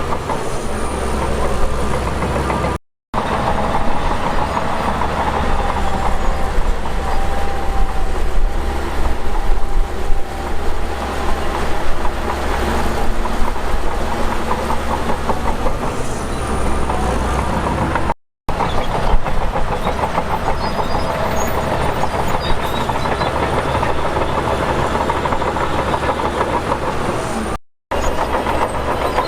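Heavy diesel earthmoving machinery running steadily under load, with a continuous rattle, broken three times by a brief moment of silence where the clips are cut.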